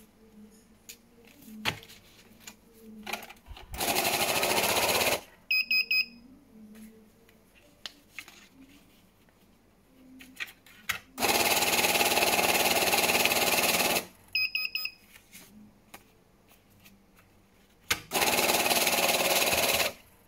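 CashTek ST-8192T banknote counter whirring as it riffles a stack of rupiah notes through, in three runs of about one to three seconds, the middle one the longest. After each of the first two runs it gives a quick series of short high beeps; at the first stop the machine has halted on a note it rejects, flagged as an image error. Light clicks and rustling of notes being handled between the runs.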